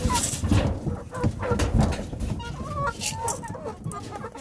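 Chickens clucking in short, wavering calls, over rustling and a few knocks.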